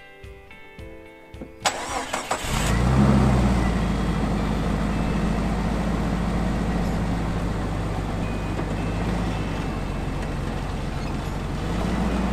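A Jeep Cherokee's engine is started: a click, a brief crank, and the engine catches about two and a half seconds in with a short rise in revs. It then settles into a steady idle, which picks up slightly near the end. Music fades out just before the start.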